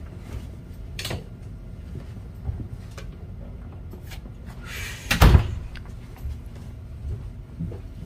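Rustling and handling noise as a cat is petted on carpet, with a click about a second in and a louder rustle ending in a thump about five seconds in.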